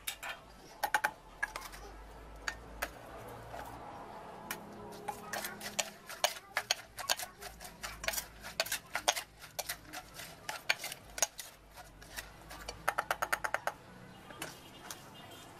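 Pestle and spoon knocking in a clay mortar as a shredded vegetable salad is pounded and tossed: irregular sharp knocks, with a quick run of taps a little before the end.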